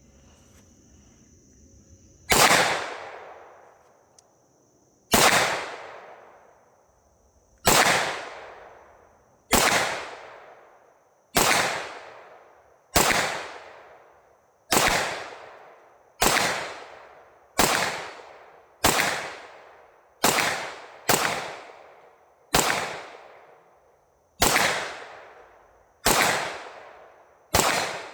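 Pistol fired shot by shot in a slow, steady string, about sixteen shots spaced one to two and a half seconds apart, each followed by a fading echo.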